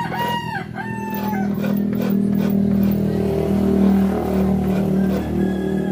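A rooster crowing near the start, one call in two parts, each ending in a falling note, followed by a steady low hum.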